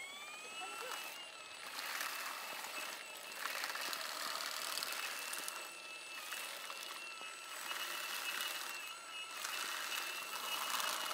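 Pole-mounted electric olive harvester: its motor whines up to speed in the first second and then holds a steady whine. Its spinning tines thrash through the olive branches in about four rustling bursts, shaking the olives loose.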